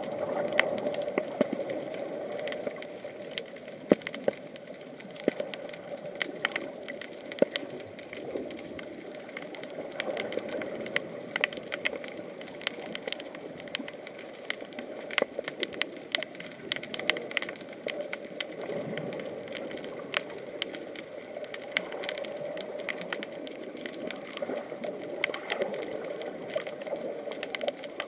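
Underwater sound picked up by an action camera: a steady low hum overlaid with a dense, irregular scatter of sharp clicks and crackles.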